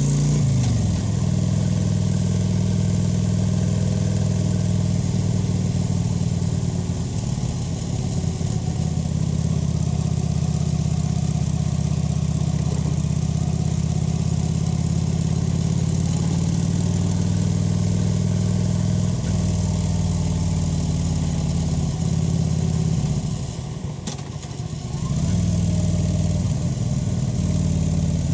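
Kawasaki VN 900 V-twin running steadily under way, its exhaust note holding at an even engine speed. Near the end the throttle comes off and the engine goes quieter for about two seconds, then it pulls again.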